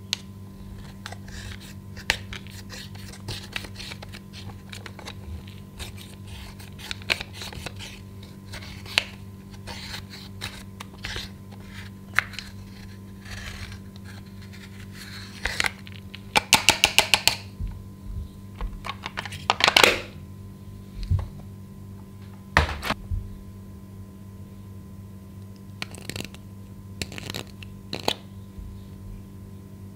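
A wooden stick crushes and scrapes pressed powder makeup in a plastic compact, giving scattered taps and clicks. About halfway there is a fast run of clicks, and a louder scrape follows a few seconds later. A steady low hum runs underneath.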